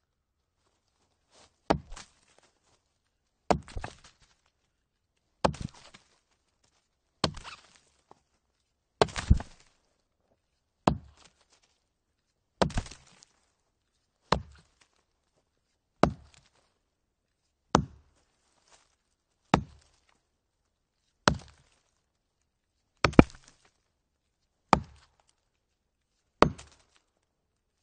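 An axe chopping a log: about fifteen evenly paced chops, one roughly every two seconds. Each is a sharp crack into the wood, and a few have a quick second knock right after.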